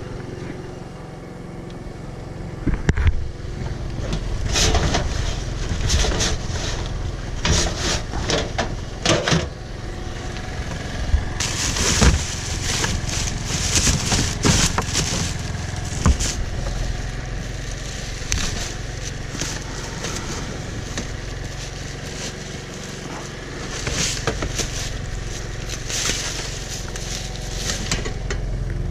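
Scrap being handled and sorted: irregular clanks, knocks, scrapes and rustles of metal and debris over a steady low engine rumble.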